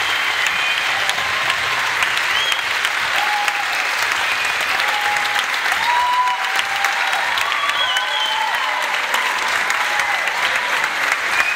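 A large audience applauding steadily after an orchestra performance, with scattered voices calling out over the clapping.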